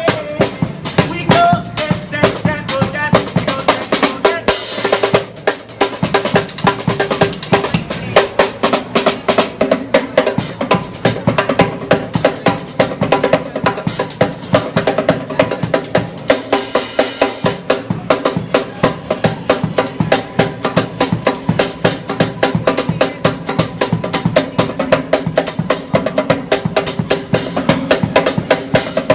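Drum kit, a snare drum and a crash cymbal, played in a fast, busy stream of hits and fills that runs without a break.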